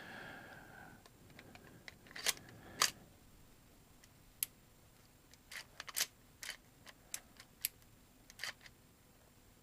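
Scattered light clicks and knocks of an airsoft Colt 1911 pistol's parts being handled and fitted back together, the two loudest about two to three seconds in, with a short faint squeal in the first second.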